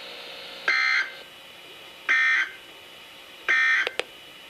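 Three short digital data bursts, evenly spaced about a second and a half apart, from a Reecom R-1650D weather radio's speaker: the NOAA Weather Radio SAME end-of-message tones that close the weekly test broadcast. A brief click follows the third burst.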